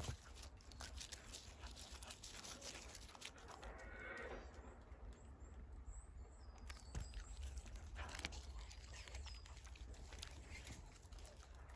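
A Shiba Inu biting and chewing dry bamboo-grass (sasa) leaves: irregular crisp crunches and leaf rustling.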